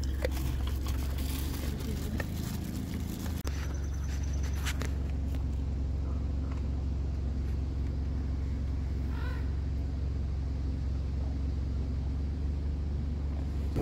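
Car engine idling with a steady low hum, heard from inside the car, with scattered clicks in the first few seconds and a brief high-pitched call about nine seconds in.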